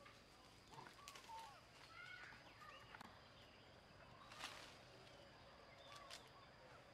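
Faint outdoor natural ambience: scattered short chirping animal calls and a few sharp clicks, over a faint steady high tone.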